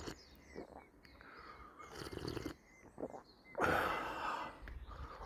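Decoy duck calling in a few raspy quacking bursts, the loudest and longest about three and a half seconds in.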